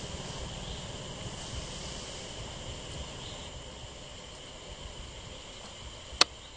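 Insects buzzing steadily at a high, even pitch, with one sharp click near the end.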